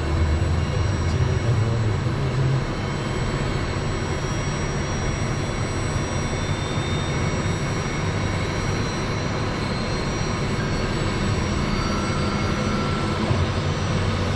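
Cessna Citation Mustang's turbofan engines during start, spooling up with a steady whine and rush of air.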